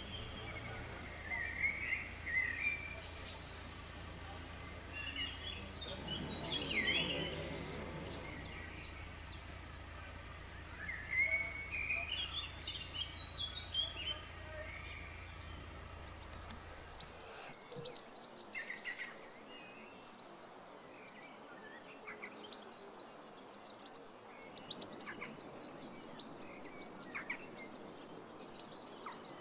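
Wild songbirds singing: several warbling phrases in the first half, then many short high chirps after an abrupt change just past halfway, when a steady low hum underneath stops.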